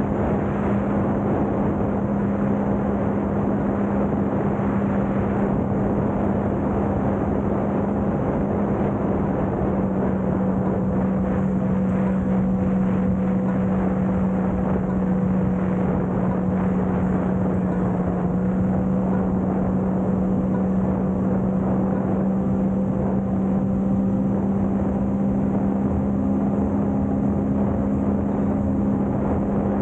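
Sea-Doo personal watercraft running at a steady cruising speed: the engine and jet pump give a constant drone, over the rush of water spraying off the hull.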